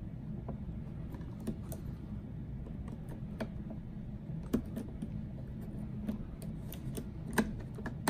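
Scattered light clicks and scrapes of a metal reamer tip picking debris off the plastic housing and charging contacts of an iRobot Roomba i7, with two sharper clicks, one about halfway through and one near the end. A low steady hum runs underneath.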